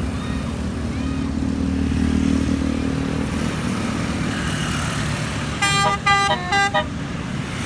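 A bus's 'telolet' musical horn plays a quick tune of four short notes, lasting about a second, about two-thirds of the way in. It sounds over the steady low running of a vehicle engine.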